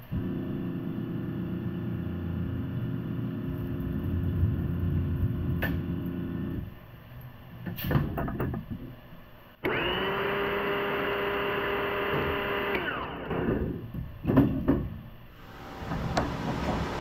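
Shop machinery working on scrap motor stators. A steady low machine drone runs for about six and a half seconds and stops, followed by metal clanks. Then a higher-pitched electric motor starts suddenly, runs for about three seconds and winds down, there are more clanks, and a motor spins up again near the end.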